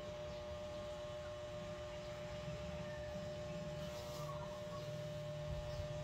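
A steady electric hum over a low, even rumble.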